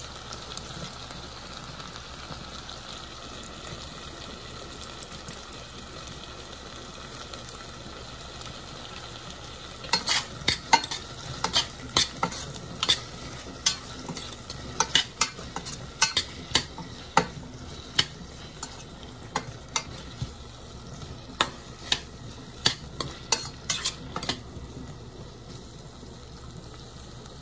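Diced potatoes and onions frying in a stainless steel pot with a steady sizzle. About ten seconds in, a utensil starts stirring them, knocking and scraping against the pot in irregular strokes for about fifteen seconds, then stops and the sizzle goes on alone.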